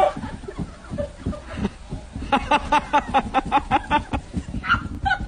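High-pitched, rapid laughter: a run of short, even pulses, about five a second, starting a little over two seconds in and lasting about two seconds, over a low rumble.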